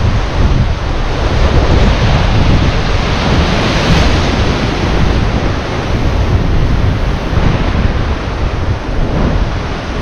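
Sea waves washing and breaking, with wind buffeting the microphone in a heavy low rumble. The wash swells briefly about four seconds in.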